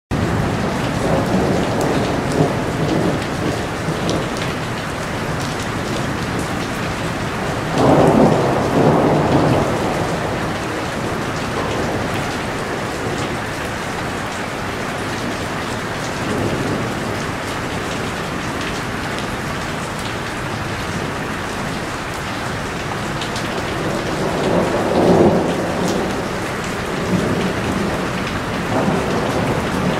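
Heavy rain falling steadily, with rumbles of thunder swelling about eight seconds in and again near the end.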